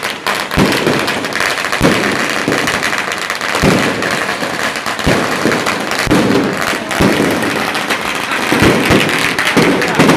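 Strings of firecrackers going off in a continuous, dense crackle of rapid irregular pops, with voices under it.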